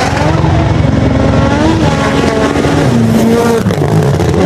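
Rally car engine running hard, its note rising and dropping in steps through the gears.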